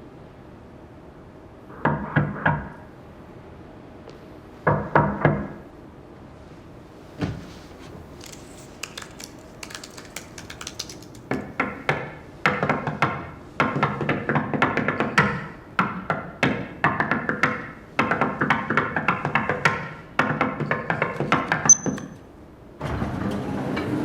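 Background music: two short swells near the start, then a fuller passage with a quick pulsing beat from about halfway, breaking off briefly near the end.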